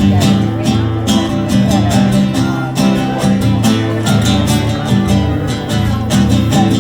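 Acoustic guitar strummed in a steady rhythm, with low bass notes underneath: a band playing an instrumental passage.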